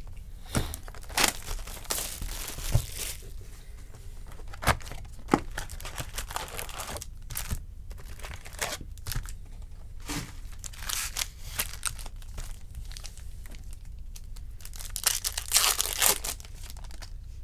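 Foil-wrapped Bowman baseball card packs being torn open and their wrappers crinkled by hand: irregular tearing and rustling, loudest about fifteen to sixteen seconds in.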